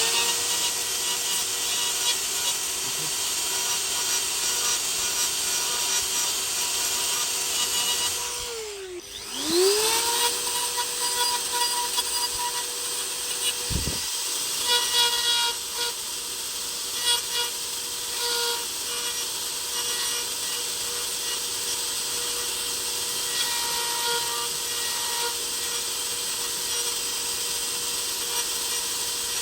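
Electric power tool working wood, its motor whining at a steady speed over a noisy rasp of the cut. About nine seconds in, the motor slows sharply and then spins back up to speed.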